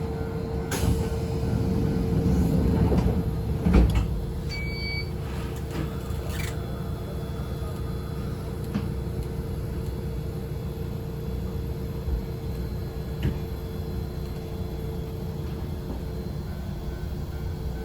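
Electric train's sliding doors rumbling shut and closing with a thud about four seconds in, followed by a short beep. Then the railcar's steady low hum.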